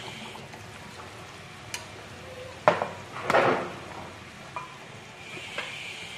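Beef soup simmering in a frying pan on a gas burner, a steady bubbling hiss. A few sharp clinks of a utensil against the pan come through it, the loudest a little under three seconds in and another just after, followed by a short scraping rustle.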